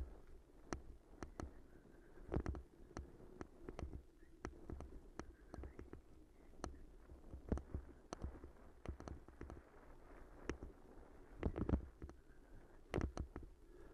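Bicycle jolting over a bumpy dirt path, heard through a camera mounted on the bike or rider: irregular knocks and rattles over a low rumble, with a few harder jolts about two and a half seconds in and again near the end.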